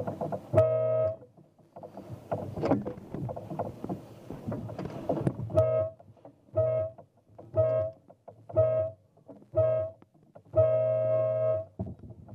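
Race committee's starting horn: one short blast, then five short hoots about a second apart and a longer final blast, the countdown of the last seconds before a dinghy race start, the long blast marking the start. Irregular knocks and rustling fill the gaps between blasts.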